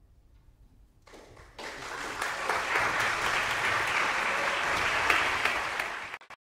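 Audience applause, starting faintly about a second in, swelling quickly to full clapping, then cut off abruptly near the end.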